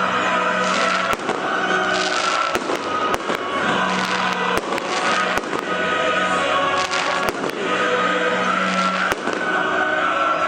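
Fireworks display: a dozen or so sharp bangs and crackling bursts at irregular intervals, over music playing along.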